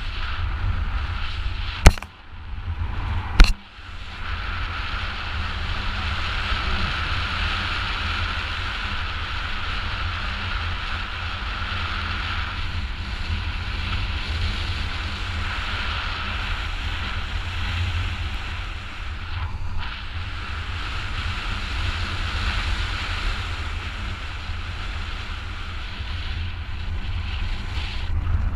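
Airflow rushing and buffeting over a GoPro action camera's microphone during a paraglider flight: a steady low rumble with a hiss over it. Two sharp knocks, the loudest sounds, come about 2 and 3.5 seconds in.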